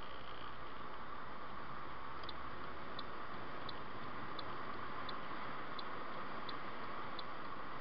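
Steady road and engine noise of a moving car, heard inside the cabin. A light, high tick repeats about every 0.7 seconds from about two seconds in.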